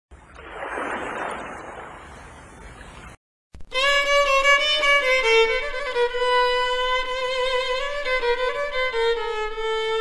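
A rushing noise swells and fades over the first three seconds and cuts off. After a short gap a violin melody begins, with long held notes and vibrato.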